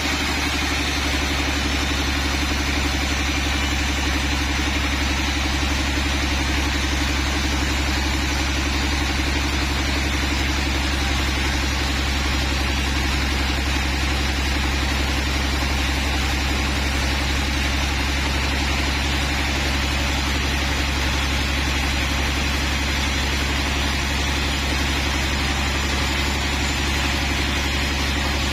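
Sawmill machinery running steadily: a constant low engine drone with a steady hiss above it, unchanging throughout.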